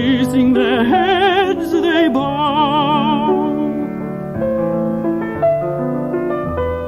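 Classical singing with strong vibrato over piano accompaniment. The voice holds one long note a little over two seconds in, then falls away and the piano carries on alone with a series of held notes.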